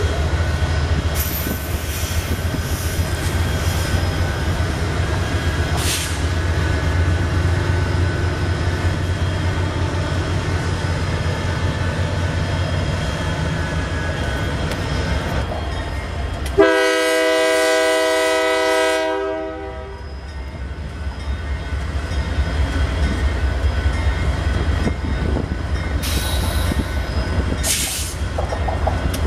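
Union Pacific diesel freight train rumbling past at close range with its cars rolling. A multi-chime locomotive air horn sounds once for about three seconds in the middle and cuts off sharply. Two short high hisses come near the end.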